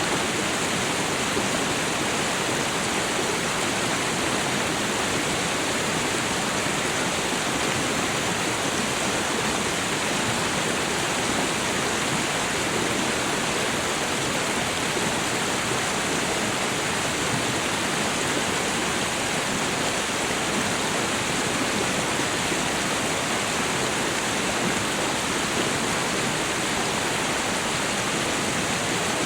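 Meltwater stream pouring over a small waterfall: a steady, unbroken rush of running water.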